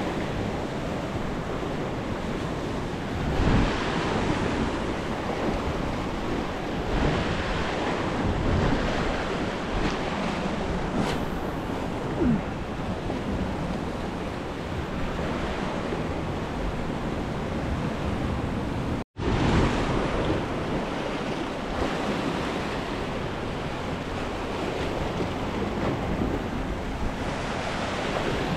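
Sea surf washing and breaking against granite shore rocks, a steady rushing that swells and ebbs, with wind buffeting the microphone.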